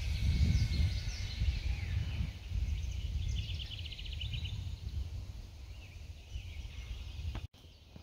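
Low, uneven rumble of wind on the microphone, with small birds singing over it from the marsh; a rapid trill of quick high notes comes about three seconds in. The sound cuts off abruptly near the end.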